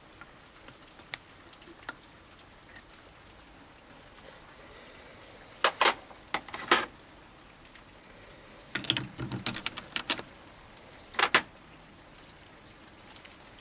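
Handling noise at a stopped mini lathe's three-jaw chuck: scattered sharp metallic clicks and knocks, in small clusters about halfway through and again near the end, as the chuck is worked and a brass ferro rod handle is taken out of the jaws.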